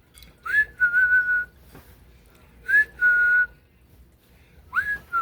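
Three whistled notes, each a quick upward flick followed by a held steady tone; the third starts near the end.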